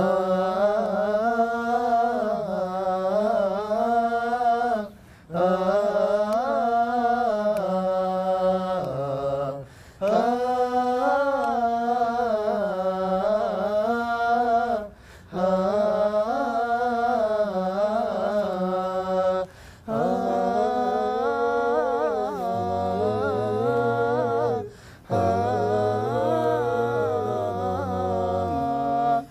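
Unaccompanied group of male nasheed singers singing a melody together on drawn-out 'aah' vowels, in phrases of a few seconds broken by short breaths. About three-quarters of the way in, a low bass voice joins beneath the main line.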